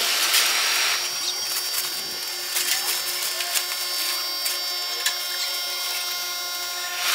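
Nylon charging jacket rustling and crackling as it is handled and draped over an air-conditioning condensing unit. Under it is a steady hum with several fixed tones from the running condensing unit.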